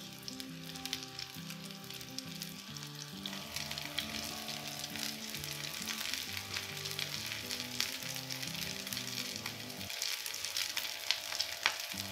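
Potato kababs shallow-frying in a little oil on a nonstick tawa over low heat: a steady sizzle with scattered small pops and crackles, one sharper pop near the end. Soft background music with a slow melody plays underneath.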